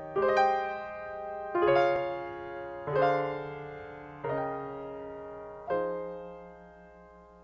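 Recorded music: solo piano chords, five struck about a second and a half apart, each left to ring and die away. The last fades out near the end.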